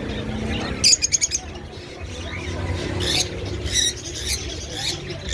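Small parrots chirping, with a short loud burst of rapid, sharp chirps about a second in and a few more scattered calls later.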